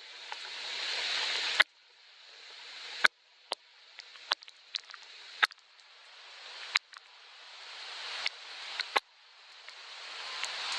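Soft rain: a hissing wash that swells and then cuts off abruptly several times, with sharp ticks of single drops landing close by.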